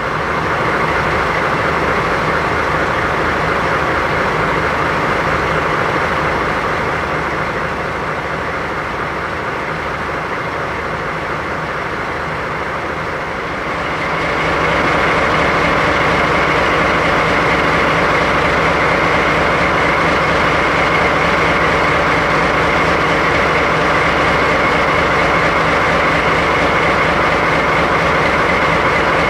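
DD51 diesel-hydraulic locomotive's twin V12 diesel engines idling steadily, a low running hum with a constant pitch; it grows louder about halfway through.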